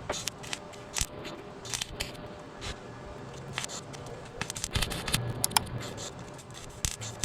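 Irregular clicks, taps and light scrapes, with a short metallic ping about five and a half seconds in.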